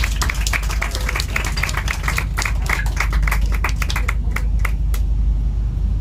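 Audience applause: many hands clapping, thinning out and stopping about five seconds in. Under it runs the steady low rumble of the boat's engines.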